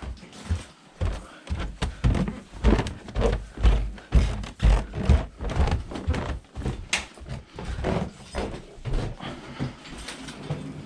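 Footsteps going up a flight of stairs: a run of heavy thuds, about two a second.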